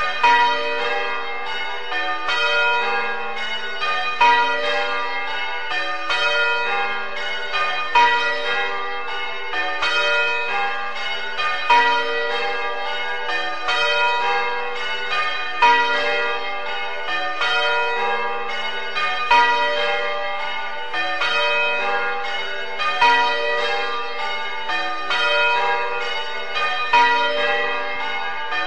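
A ring of church bells being rung, struck one after another in a steady repeating sequence, with a louder stroke about every four seconds.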